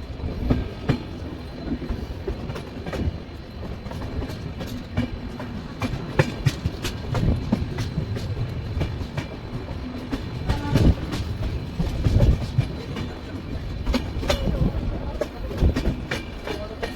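Passenger express train running, its wheels clattering over rail joints with irregular knocks over a steady low rumble.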